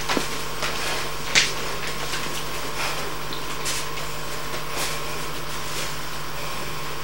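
A steady hum and hiss, with a handful of brief scuffs and thuds from sparring fighters' feet and blows, the clearest about a second and a half in.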